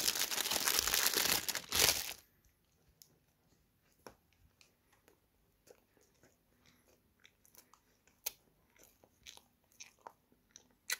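A plastic bun wrapper crinkling loudly for about two seconds, then a soft berry-filled brioche being bitten into and chewed close to the microphone, heard as quiet scattered mouth clicks and smacks.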